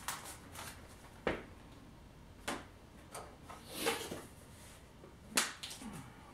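Hands handling a plastic container and bag of model-scenery turf: a few sharp, light knocks about a second apart and a short rustle near the middle.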